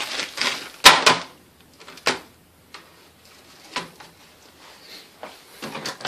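Sharp knocks and clicks of things being handled in a kitchen, the loudest about a second in, with softer ones scattered after it.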